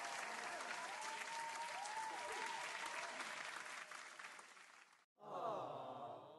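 Applause sound effect: a crowd clapping and cheering with a few whistles, cut off abruptly about five seconds in. It is followed by a short separate clip of falling tones that fades out.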